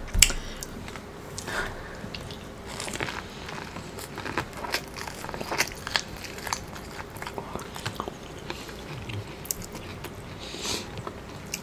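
A person biting and chewing kernels off an ear of Mexican street corn (elote): a string of small crisp crunches and clicks.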